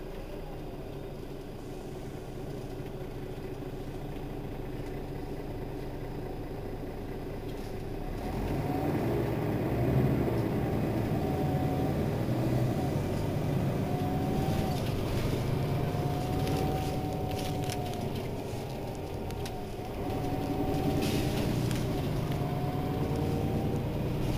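Diesel engine of a Mercedes-Benz Citaro city bus running at low revs, then pulling harder and louder from about eight seconds in. A whine rises and falls several times; the engine drops back briefly about twenty seconds in, then picks up again.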